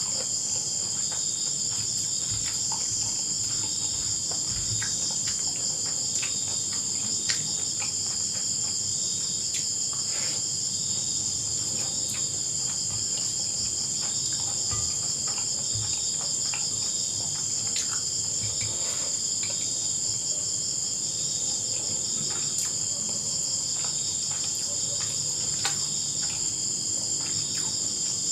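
Night chorus of insects, several kinds trilling steadily at once in high, overlapping pitches, one of them in a fast pulsing rhythm, with faint scattered small taps.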